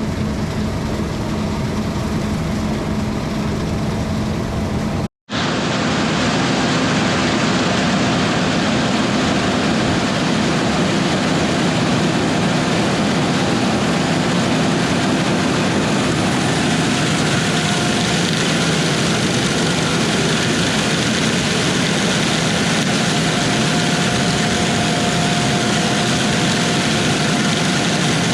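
Harvest machinery running steadily, a continuous engine and machine noise with faint steady tones in it. It breaks off for an instant about five seconds in, then carries on slightly louder.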